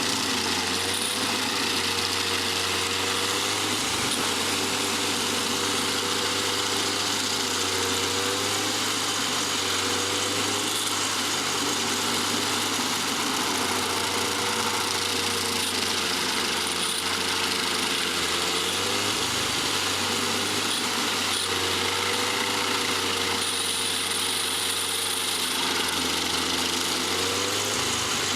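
Stump grinder running steadily, its engine note wavering slightly up and down, with a dense hiss over it.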